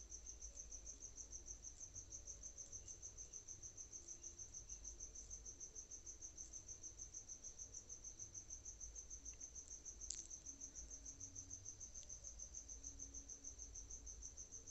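Cricket chirping faintly in the background: a steady, high, pulsing trill of about five pulses a second.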